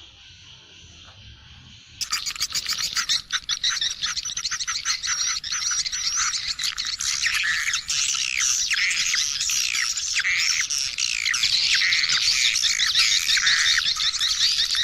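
Dense chorus of swiftlet chirps and twittering, many short falling calls overlapping, starting abruptly about two seconds in.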